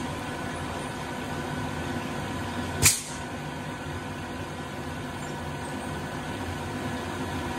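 Margo-T (SMFB-50) edge-banding machine running with a steady hum. About three seconds in comes one short, sharp hiss of air as its pneumatic cylinder fires.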